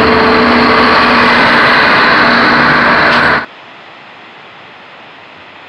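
Passenger railcars rolling past close by, a loud steady rush of wheels on rail with a faint steady hum in it. About three and a half seconds in it cuts off suddenly to the much quieter, steady rush of river rapids.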